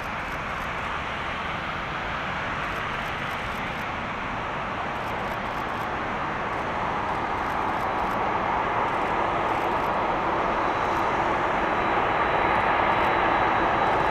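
Boeing 767-300F freighter's jet engines running at low taxi power, growing steadily louder as the aircraft taxis closer. A faint high whine comes in about two-thirds of the way through.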